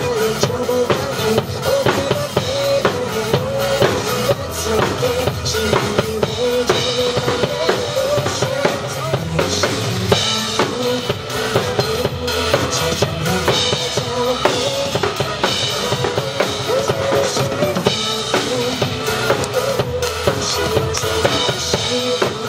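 Drum kit played live to a recorded pop song: a steady beat of bass drum and snare with cymbals, over the song's sung melody.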